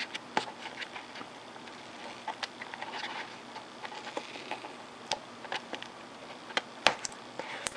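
Fingers and a fingernail picking at a cardboard box's tucked-in flap: scattered small scratches, taps and clicks at uneven intervals, the loudest click near the end.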